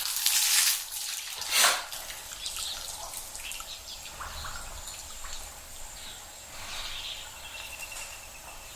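Water splashing and dripping, with two louder splashes near the start and small bird chirps over it.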